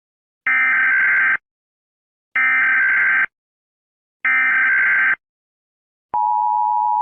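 Emergency Alert System SAME header: three identical bursts of data tones, a shrill warbling screech just under a second long each, about two seconds apart. About six seconds in, the steady two-tone EAS attention signal begins.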